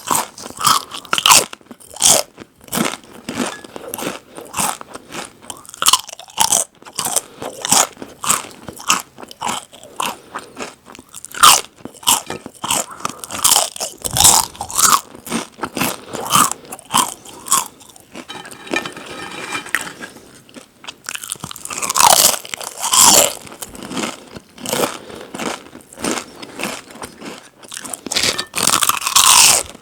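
Close-miked chewing of crunchy chips: rapid, irregular crisp crunches, several a second. There is a brief softer stretch a little past the middle, then louder bursts of crunching.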